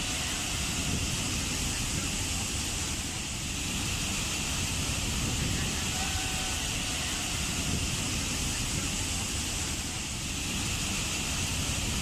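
Waterfall: water falling and rushing steadily, a continuous roar with a deep rumble and a bright hiss.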